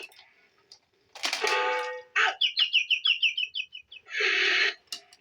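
A Sylvester and Tweety animated cuckoo clock plays cartoon sound effects through its small speaker. A short harsh, noisy sound comes about a second in, then a quick run of high bird tweets lasting about a second and a half, then a short hissing burst near the end.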